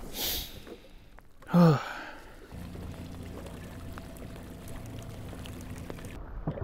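A brief rush of splashing water, then a short voiced exhale, then a steady low hum.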